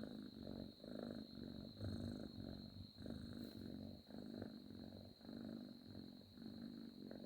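A sleeping cat purring, a low fine rattle that swells and fades with each breath in and out.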